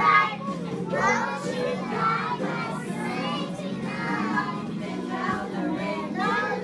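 A class of young children singing a song together, with music playing along.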